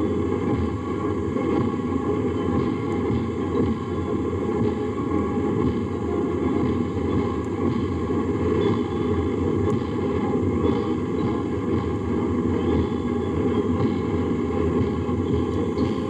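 A column of tanks driving past, their engines and tracks making a steady low rumble on an old recording.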